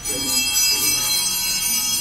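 Bells ringing continuously, a dense shimmer of many high tones that starts abruptly and holds steady.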